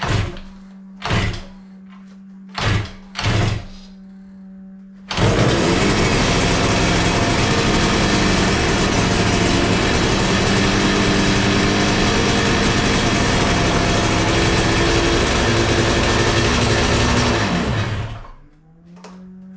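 Yamaha RZ350 two-stroke parallel twin being kick-started on choke: four brief coughs in the first few seconds, then it catches about five seconds in and runs at a steady fast idle of 2,500 to 3,000 rpm. It dies away near the end. The idle is set too high on the untuned carburettors after the top-end rebuild.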